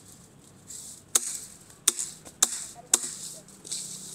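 Four sharp knocks or slaps in quick succession, the first about a second in and the rest coming a little over half a second apart.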